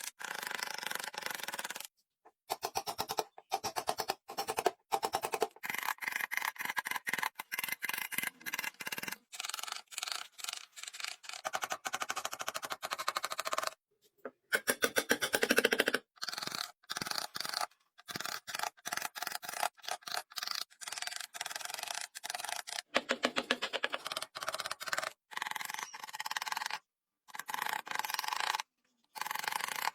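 Hand tools working wood: rapid rasping and scraping strokes that start and stop abruptly many times, in short cut-together stretches.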